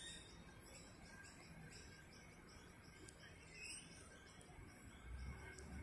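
Near silence: faint, evenly repeated high chirping, about two or three chirps a second, and a faint low rumble rising near the end.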